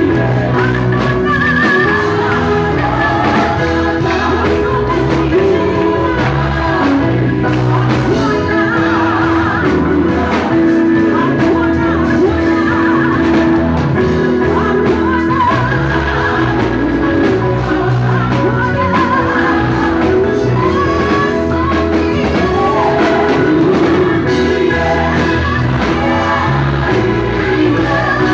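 Live gospel praise music through the church sound system: a woman's lead voice singing into a microphone, joined by backing singers, over a steady instrumental accompaniment with a bass line.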